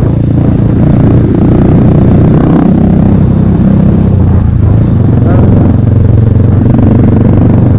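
Dirt bike engine running steadily while the bike is ridden at low speed over a rough dirt track, heard loud and close from the rider's position.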